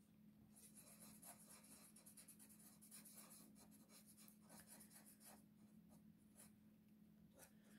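Faint scratching of a Sharpie marker's felt tip on paper in short, irregular strokes as a small area is filled in, over a steady low hum.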